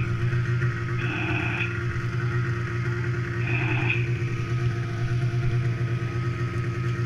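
Snowmobile engines idling steadily, with two brief higher-pitched sounds over them, about one second in and again about three and a half seconds in.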